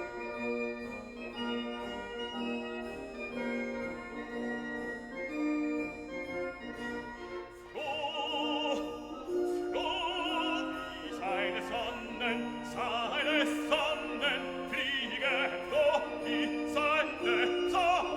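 Background classical music: a keyboard-and-orchestra accompaniment, joined about eight seconds in by a high operatic voice singing with strong vibrato.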